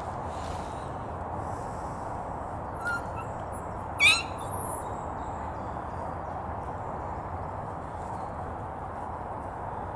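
German Shepherd puppy giving a single short, high-pitched yelp with a rising pitch about four seconds in, with a fainter squeak shortly before, over steady outdoor background noise.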